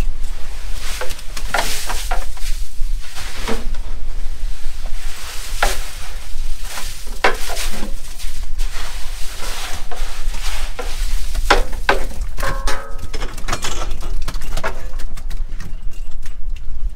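Irregular knocks and clatters of cod and fishing gear on the metal deck of a cod jigging boat, over a steady low rumble and hiss.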